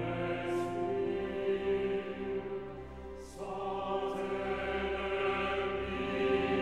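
Slow, hushed choral music: a mixed choir sings sustained chords over a low held orchestral bass, with soft sibilant consonants. The harmony shifts to a new chord about halfway through.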